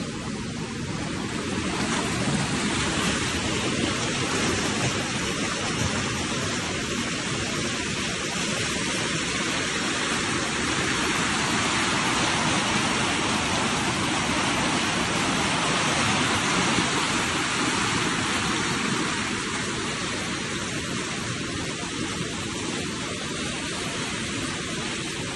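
Steady rushing of muddy floodwater running over the ground, getting louder about two seconds in.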